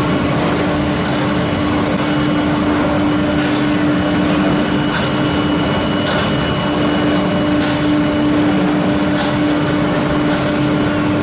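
Four-spindle CNC nesting router running, a steady machine hum with a constant rushing noise underneath and faint light ticks every second or so.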